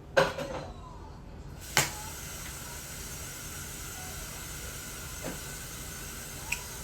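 A clatter and a sharp click, then a steady hiss of water running from a kitchen tap, which starts about a second and a half in and keeps going.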